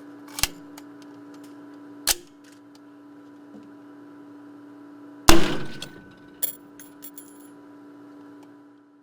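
A steady machine hum in a small room, broken by two sharp knocks and then one much louder bang with a brief metallic ring, followed by a few light clinks. The hum cuts off near the end.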